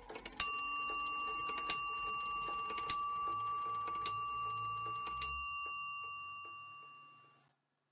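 A clock bell striking five times on the same note, about a second and a quarter apart, each stroke ringing on and overlapping the next. The last stroke fades out about two seconds later.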